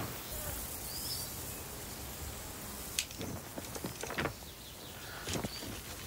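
Scattered crunching footsteps on the gravel ballast of a railway track, with a single short bird chirp about a second in, over a faint outdoor background of insects and birds.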